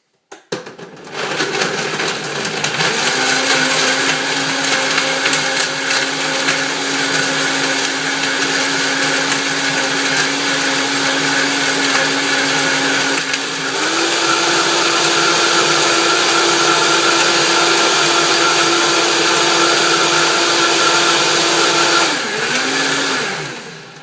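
Vitamix blender blending smoothie ingredients: the motor spins up and runs steadily, steps up to a higher speed about halfway through, then is switched off and winds down near the end.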